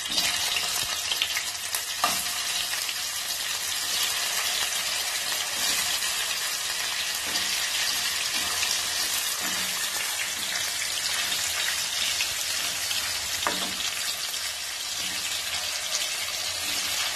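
Rohu fish steaks frying in hot oil in a kadai, a steady loud sizzle with a few sharper crackles as pieces go in and are moved with a wooden spatula.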